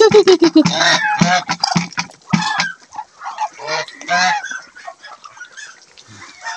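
Domestic geese honking: a long call falling away at the start, then a run of short honks close together, thinning out over the last few seconds.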